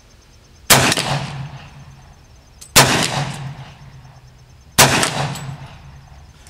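Three gunshots about two seconds apart, each sharp crack trailing off in a long echo.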